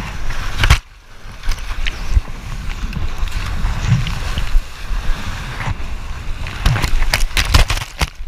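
Breaking whitewater rushing and splashing around a surfboard-mounted action camera, with rumbling buffeting on the microphone. A brief dip about a second in, then a dense run of loud splashes and knocks in the last two seconds as the surfer falls into the wave.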